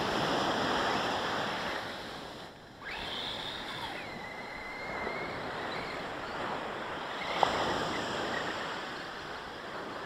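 Sea surf washing on a beach, with wind on the microphone. A faint high whine sounds a few seconds in and steps down in pitch, and there is a single sharp click a little past the middle.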